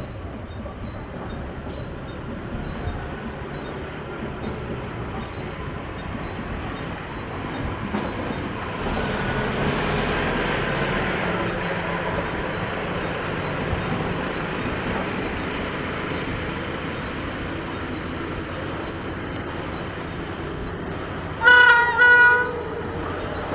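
Indian Railways WAP-5 electric locomotive hauling an LHB express train. The train's rumble grows louder over the first ten seconds or so and then holds steady. Near the end the locomotive's horn gives two short blasts in quick succession.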